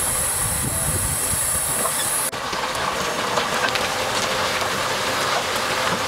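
Dump truck tipping its load: a steady engine rumble with a strong high hiss for the first two seconds, which cuts off abruptly; then soil and stones sliding off the raised tipper body with many small scattered clatters.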